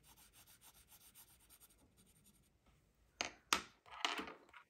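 Colored pencil shading on paper: quick, light, repeated scratchy strokes of a soft Prismacolor pencil. They are followed about three seconds in by two sharp taps and a short, louder scratching stroke.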